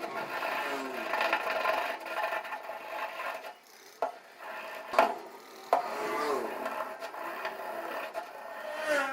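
Hand-tool scraping and rubbing on a motorcycle part, in uneven rasping strokes with a squeaky edge, broken by a few sharp knocks around the middle.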